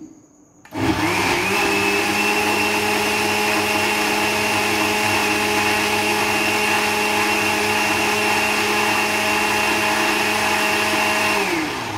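Countertop electric blender running, blending a fruit, carrot, ginger and yogurt smoothie. It starts about a second in, quickly rises to a steady speed with a steady whine, and winds down near the end.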